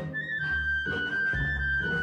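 Background music: a tune of held melody notes over a pulsing bass line.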